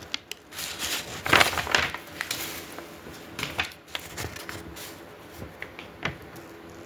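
Rummaging through grill parts and their packaging: irregular rustling and crinkling with sharp clicks and clacks, loudest about a second and a half in.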